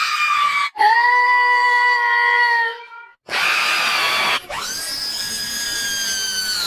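A run of cartoon character screams from the lowercase Alphabet Lore letters, one after another with short gaps. Two are long, held, high-pitched screams, and between them is a short, rough, hissing shriek.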